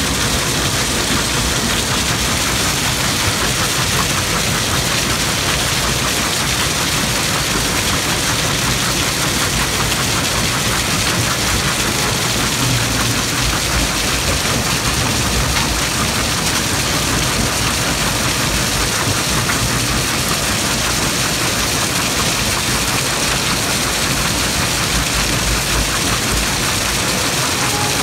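Super Cone SP500 cone crusher running at about 800 rpm while crushing a feed of rock: a loud, steady mechanical din with a dense, grainy rattle of stones.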